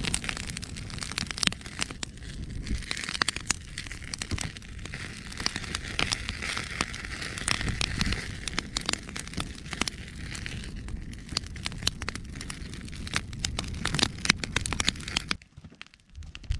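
Wood fire of sawn lumber boards burning, crackling with many sharp pops over a low steady rumble. The sound drops away briefly near the end.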